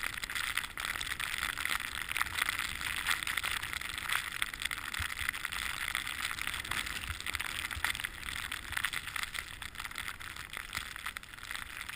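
Snowboard gliding over snow: a steady hiss of the board's base and edges on the snow, with small crackling scrapes.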